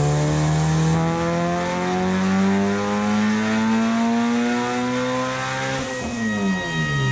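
Turbocharged 1999 Honda Civic Si's four-cylinder engine in a dyno pull under load, its note climbing steadily through the revs. About six seconds in the throttle closes: the engine note drops quickly and a high whistle slowly falls behind it.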